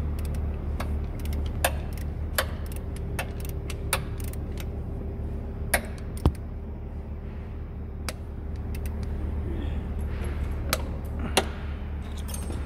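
Socket ratchet on a long extension working a bolt under a car: scattered metal clicks and clinks, a few of them louder, over a steady low hum.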